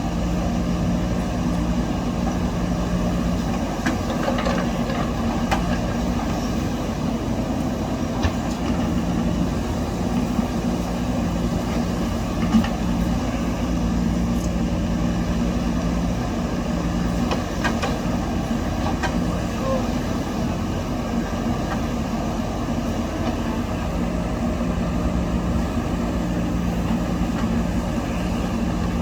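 Diesel engine of a backhoe loader running steadily at work, digging and loading soil, with a few short clanks, the sharpest about twelve seconds in.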